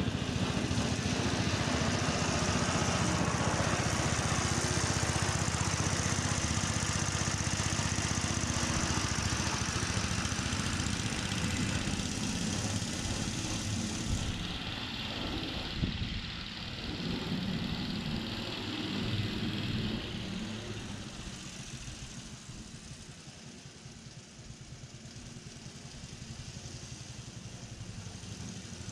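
Ransomes Marquis 20-inch cylinder mower's pull-started petrol engine running steadily as the self-propelled mower drives away up the lawn with its drive engaged, fading noticeably about two-thirds of the way through.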